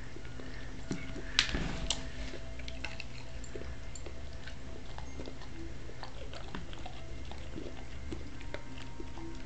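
Bernese Mountain Dog chewing a tough dog biscuit, with a burst of crunching about one and a half seconds in, then scattered small crunches and clicks of his jaws.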